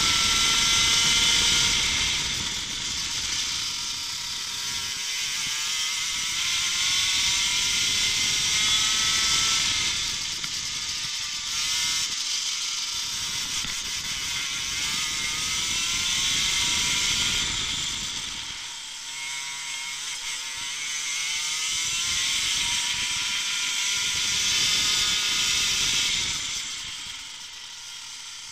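Racing kart engine heard onboard, repeatedly revving up in a rising whine, then dropping away and climbing again, with a strong steady hiss over it.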